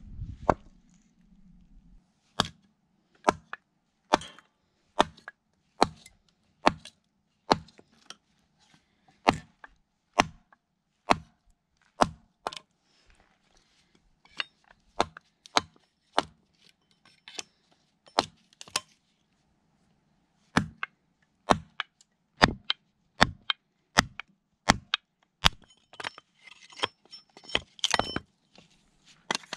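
A short sledgehammer striking the back of a hatchet head to split dense plane-wood offcuts into kindling: a steady series of sharp knocks, about one a second, with a short pause in the middle and a brief metallic ring on some strikes near the end.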